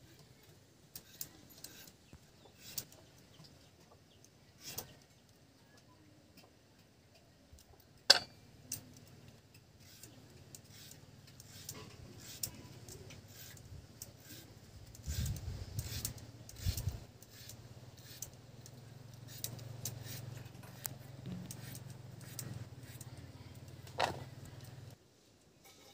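Green papaya being cut on a boti, a curved blade fixed upright on a wooden base: scattered crisp clicks and taps as the blade goes through the fruit, the sharpest about eight seconds in. A low hum comes in at about the same time and stops shortly before the end.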